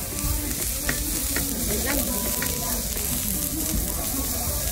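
Beef fillet sizzling on a hot lava stone as it is cut, a steady high hiss, with a few light clinks of knife and fork on the stone about one to two and a half seconds in.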